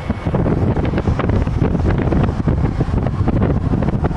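Wind buffeting the microphone inside a moving car, over a steady low road rumble.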